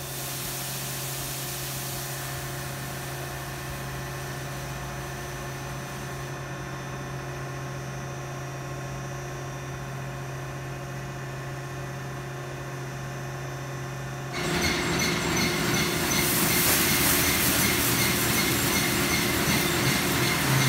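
Futura Millennium touchless in-bay car wash machinery running with a steady hum and a low tone; about 14 seconds in, a loud hiss of water spray starts suddenly and keeps on.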